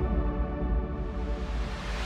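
Background music with held, sustained notes, easing slightly in loudness.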